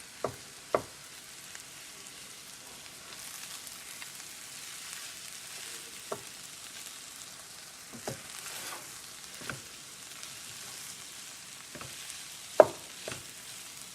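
A spoon stirring cooked rice and vegetables in a pan over a low, steady sizzle, with several sharp knocks of the spoon against the pan, the loudest near the end.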